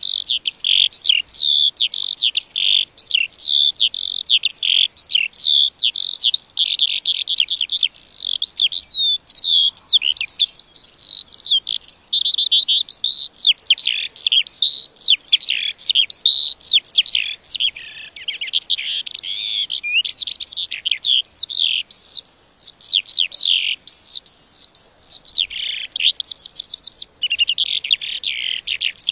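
A lark singing: a long, nearly unbroken stream of rapid, varied high chirps, trills and whistled notes, barely pausing.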